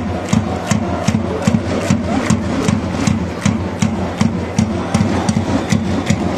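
Football supporters' post-goal chant: a drum beaten steadily at about three beats a second with sharp hand claps on the beat, over the crowd's chanting.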